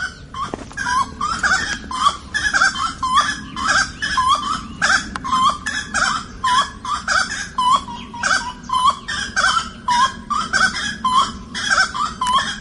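Birds calling in a fast, steady series of short chirps, about two or three a second, over a low steady background noise.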